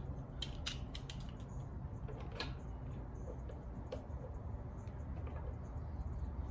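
Scattered small metallic clicks and taps of hand work on a minibike's roller chain master link with pliers, over a low steady hum.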